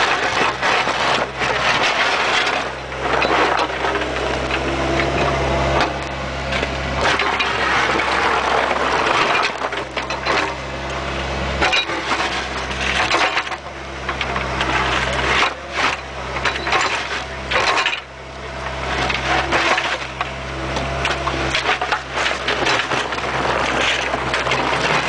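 Bobcat 430 mini excavator bucket scraping and digging through soil and stones, heard from inside the bucket: constant close crunching and grinding with many sharp knocks. The machine's engine and hydraulics drone low underneath, swelling and easing every few seconds as the arm works.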